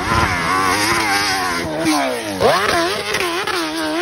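Dirt bike engine revving hard under load on a steep hill climb, its pitch rising and falling with the throttle, with sharp climbs in pitch at the start and again about two and a half seconds in.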